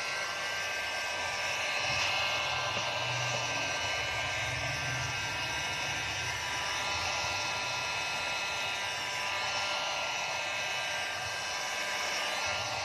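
Hot air gun blowing steadily with a faint whine, heating a phone's back panel; it shuts off at the very end.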